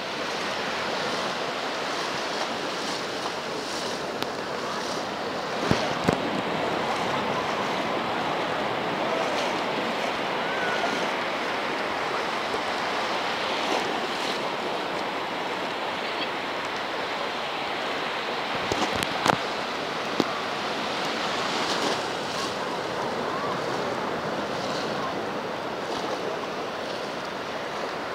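Surf breaking and washing over shallow water on a sandy beach, a steady rushing wash. A few sharp clicks stand out about six seconds in and again around nineteen to twenty seconds.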